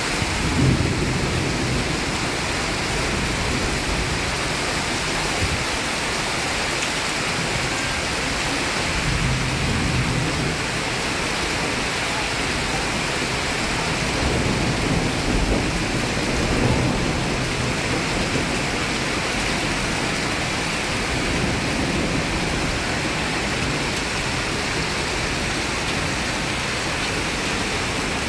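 Steady hiss of heavy rain and rushing water, with a few low rumbles rising and fading through it.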